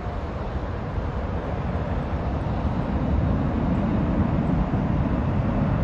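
Distant Boeing 777-9's twin GE9X turbofans at takeoff thrust as the jet climbs out: a low rumble that grows louder about three seconds in.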